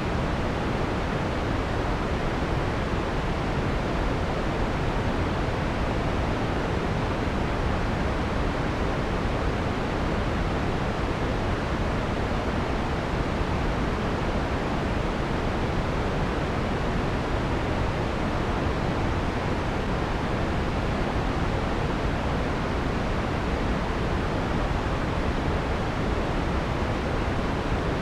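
Synthesized white noise with the harsh high frequencies filtered out: a dark, even hiss with little treble that does not change.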